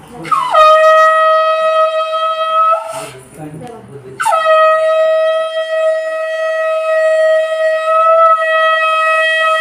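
Conch shell (shankh) blown in two long blasts. Each opens with a quick downward slide in pitch, then holds one steady note. The second blast starts about four seconds in and is held longer.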